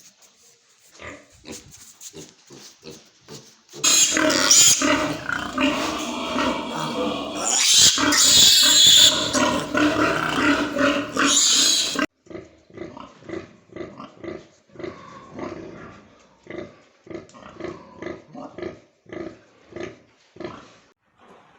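Pigs grunting in short pulses, then loud, high-pitched squealing for about eight seconds that cuts off abruptly, followed by a run of short grunts about two a second.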